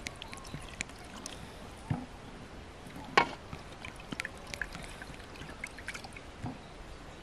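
Thin stream of water poured from a clay jug over a peeled onion in the hand, trickling and dripping, with small scattered ticks and one sharper knock about three seconds in.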